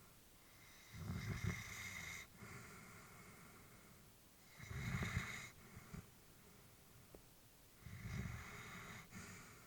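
Elderly Labrador retriever breathing in deep sleep: three slow, noisy breaths about three and a half seconds apart, each lasting about a second.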